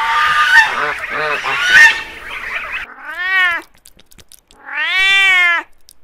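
A flock of white domestic geese and their goslings calling over one another for the first three seconds or so. Then two long meows from a cat, each rising then falling in pitch, about a second and a half apart.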